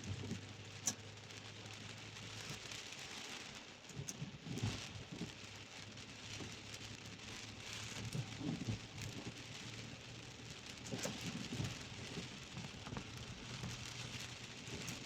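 Heavy rain falling on a car, heard from inside the cabin: a steady hiss with scattered ticks of drops over a low, steady hum from the car.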